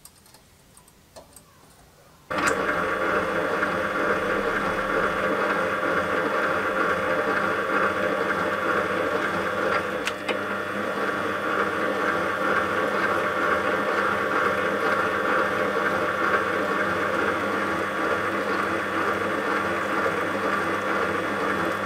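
Metal lathe running steadily while cutting a thread along a slender 1045 steel shaft, with its motor and gear train giving a steady mechanical whine. It starts abruptly about two seconds in, after a few faint ticks.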